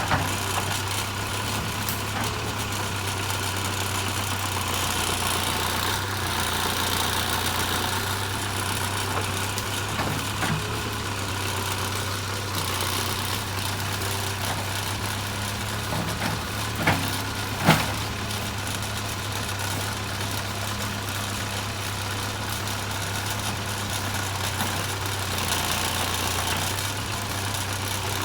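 JCB 3CX backhoe loader's diesel engine running steadily, with two short knocks less than a second apart a little past the middle.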